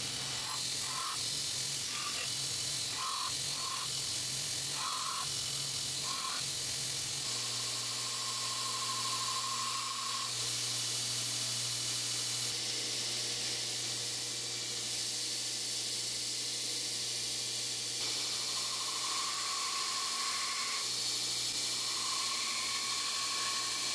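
Belt grinder running steadily: a low motor hum under the even hiss of the abrasive belt, with a forged steel knife blade being pressed against it off and on to rough-grind it.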